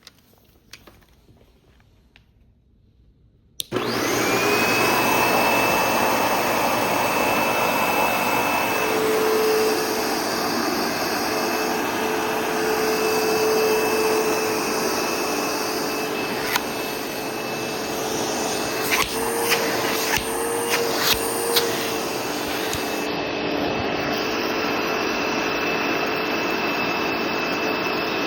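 ProTeam ProGen 15 commercial upright vacuum cleaner switched on about four seconds in: the motor spins up with a rising whine, then runs steadily. Several sharp clicks come about two-thirds of the way through.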